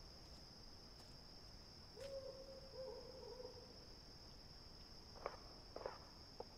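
Crickets chirring in a steady, faint high drone. About two seconds in there is a faint low drawn-out tone, and near the end three soft clicks.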